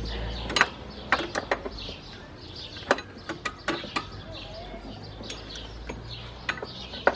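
Irregular metallic clicks and knocks of a hand tool working on the stiff alternator mounting bolts deep in a small car's engine bay, with birds chirping throughout.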